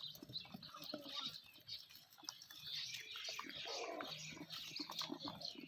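Goats and rabbits eating potatoes: irregular crunching and chewing clicks, with short high chirps mixed in.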